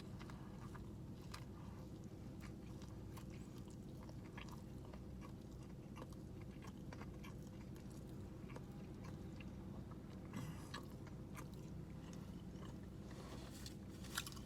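A person biting into and chewing a barbecue bacon burger: faint, scattered crunchy clicks of chewing over a steady low hum.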